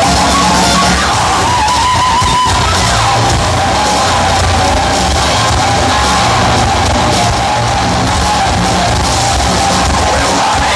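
Metal band playing live at high volume: distorted electric guitars over bass and drums, recorded on a phone in a large hall.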